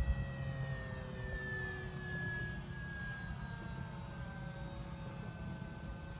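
Radio-controlled Cessna 182 model plane flying past, its motor and propeller giving a steady whine whose pitch slowly falls as it goes by, over a low rumble.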